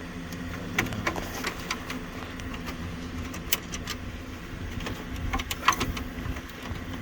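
Scattered sharp clicks and light knocks of a Phillips screwdriver working screws out of plastic dash trim, over a steady low hum.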